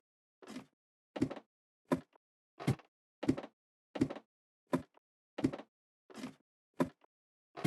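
About eleven short, sharp knocks or thuds, one every 0.7 s or so, each cut off into dead silence.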